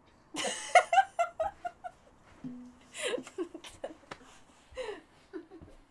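A woman laughing in several bouts: a breathy burst, then a quick run of laughs, then more laughs and giggles.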